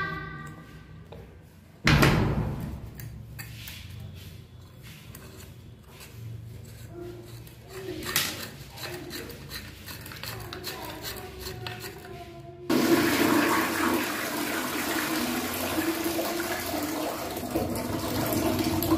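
Knocks and clicks of a PVC concealed flush valve's parts and cover being refitted by hand. About two-thirds in, a sudden steady rush of water: the concealed flush valve has been pressed and the wall-hung toilet is flushing, working again now that a pebble jamming the valve has been cleared out.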